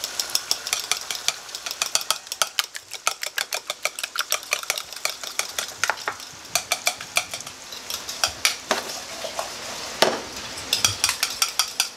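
Eggs beaten by hand in a small bowl, the utensil clicking rapidly against the sides several times a second. Under it, vegetables fry in oil in a pan with a faint steady sizzle.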